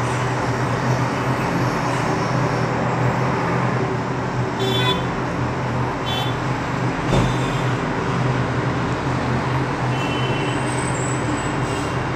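Steady road-traffic noise with a constant low hum, and two short horn toots around the middle.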